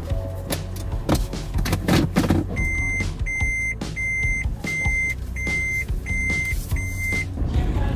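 Inside a car with the engine idling: a few clicks and knocks, then a car's warning buzzer gives seven short, high, evenly spaced beeps, a little under two a second, starting about two and a half seconds in.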